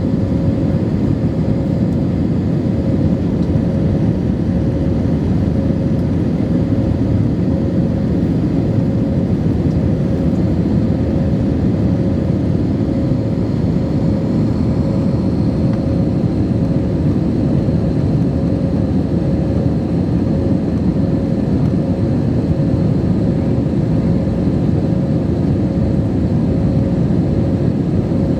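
Steady cabin noise inside an Airbus A320 in flight: the low rumble of its IAE V2527-A5 turbofans and rushing air, with a constant hum running through it.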